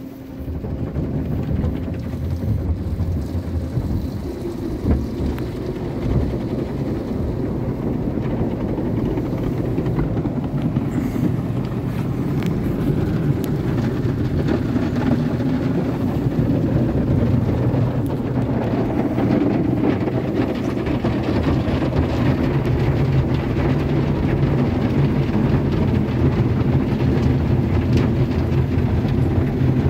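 Autec AES-425 automatic car wash machine starting up abruptly and running steadily with a deep rumble and hum, slowly growing louder.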